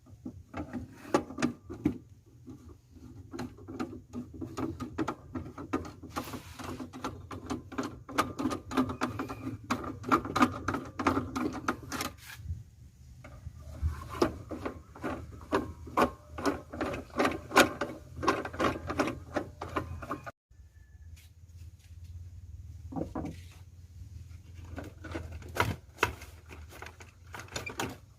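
Rapid runs of scraping and clicking strokes from hand work, over a steady low hum. It breaks off abruptly about twenty seconds in and comes back more sparsely.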